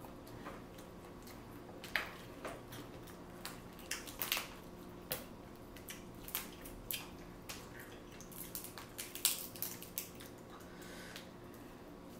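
Eating a seafood boil: irregular faint sharp cracks and wet squishes of shellfish being cracked, peeled and chewed.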